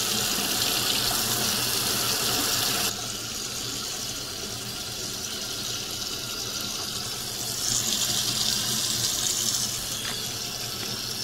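Bathroom faucet running steadily into a sink bowl, the stream splashing onto the drain. The sound drops a little about three seconds in and swells again later on.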